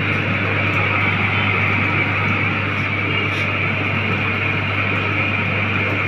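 Chilli-powder oil-mixing machine running steadily: a constant low electric-motor hum under a loud, even hiss.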